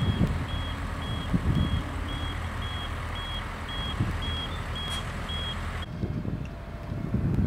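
A construction vehicle's reversing alarm beeping steadily, about two high beeps a second, over a low rumble. The beeping cuts off suddenly near the end, leaving only the rumble.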